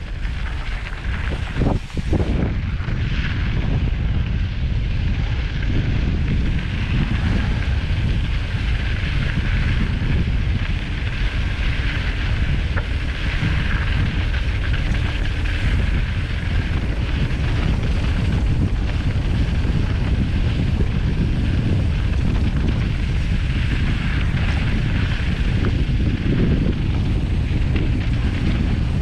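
Steady wind rushing over the microphone of a bike-mounted action camera on a fast mountain bike descent, over the rumble and crunch of knobby tyres rolling on loose gravel, with a few sharp knocks about two seconds in.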